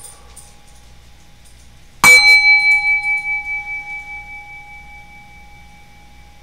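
A chime struck once, about two seconds in, ringing with a clear pitch and fading with a wavering, pulsing beat over about three seconds. It is the cue for a breath in a guided breathing exercise.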